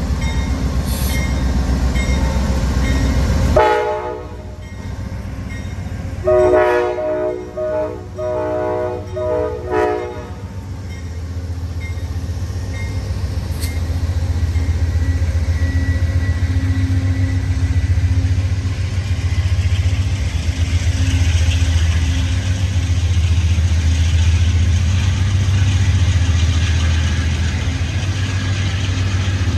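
Amtrak P42 Genesis diesel locomotive running past with a steady low engine rumble. It sounds a short horn blast about four seconds in, then a series of horn blasts from about six to ten seconds. After that the passenger cars roll by with a steady rumble and a rising hiss.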